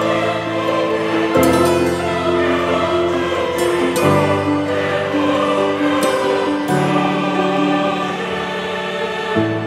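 Background music of slow, held chords that change every few seconds.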